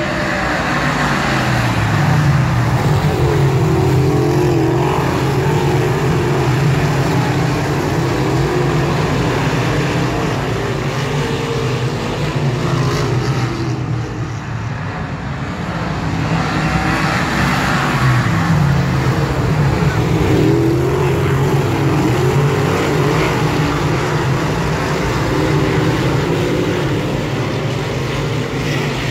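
A field of dirt modified race cars at racing speed, their V8 engines running loud and continuous. The engine note rises and swells as the pack comes past, once about two seconds in and again a little past midway, easing off briefly in between.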